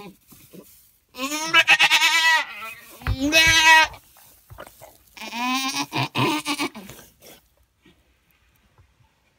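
Goat doe in labour bleating three times, long quavering calls, while her kid is being born.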